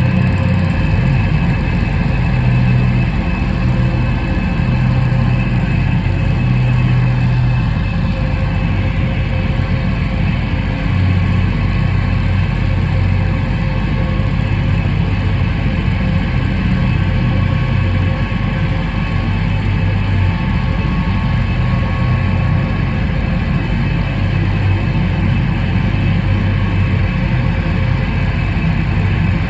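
Loud, sustained drone of distorted electric guitar played through stacked amplifiers: a continuous wall of low notes that shift slowly every few seconds, with no breaks.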